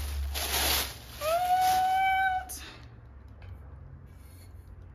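Plastic wrapping rustling and crinkling as it is handled, then a single drawn-out high-pitched call that rises and holds for about a second before stopping, after which things go quieter with one small click.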